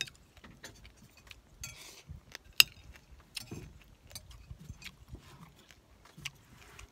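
Close-up eating sounds: chewing and mouth noises with scattered sharp clicks of a spoon against a plate, the loudest click about two and a half seconds in.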